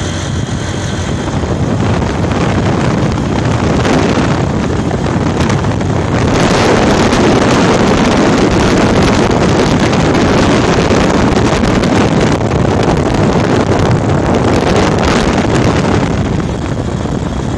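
Wind rushing over the microphone of a phone riding on a moving motorcycle, a steady loud rush that grows louder about six seconds in.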